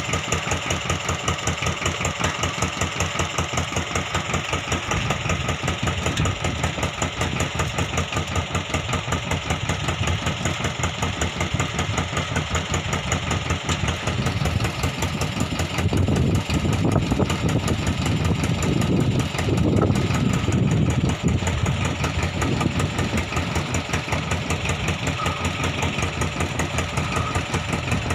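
Fishing boat's engine idling, with a fast, even knocking beat. It grows somewhat louder for a few seconds in the second half.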